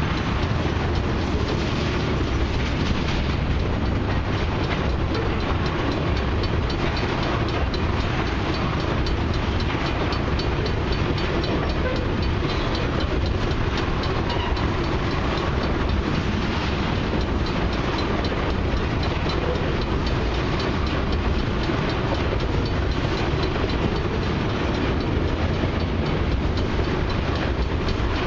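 Loaded crude oil tank cars of a long freight train rolling steadily past, a continuous rumble with wheels clicking over the rail joints.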